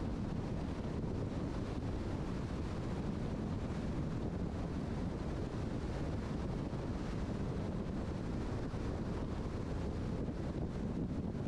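Steady road and wind noise of a car driving at speed, a low, even rumble with no changes.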